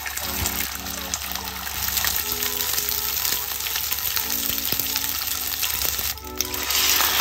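Oil sizzling steadily in a frying pan as large dumplings fry, getting louder near the end.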